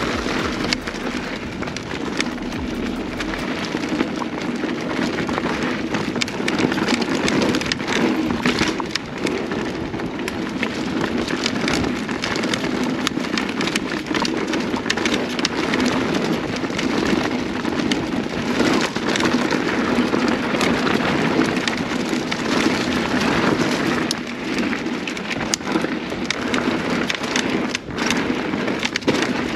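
Mountain bike riding along a dirt singletrack: a steady rush of tyre noise over packed dirt and leaf litter, with a dense run of small clicks and rattles from the bike jolting over bumps.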